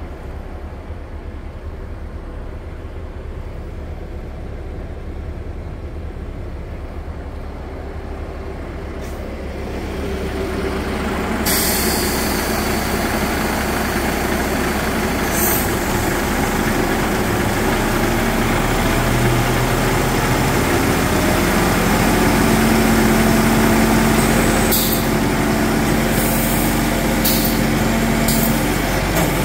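Volvo FE 320 truck's six-cylinder diesel engine running at idle. It is heard muffled at first, as from inside the cab, then louder and clearer about eleven seconds in, beside the truck. Its note shifts in the second half, and a few short air hisses come near the end.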